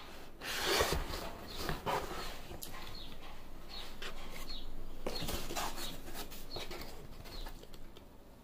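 Takeaway food packaging handled on a table: a cardboard pizza box and a polystyrene clamshell of fries shifted and opened, giving a run of irregular rustles and light knocks.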